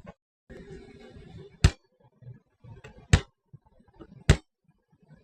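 Three sharp snaps, each very short and evenly spaced about a second and a half apart, with faint handling noise between them.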